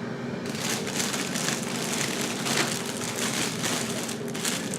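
Plastic wrapping crinkling and crackling continuously as it is handled and unwrapped.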